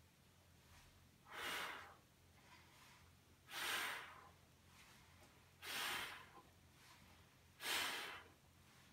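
A man's forceful exhalations during a Pilates abdominal exercise: four hissing breaths about two seconds apart, each timed to a repetition, as he breathes out while drawing the knees in.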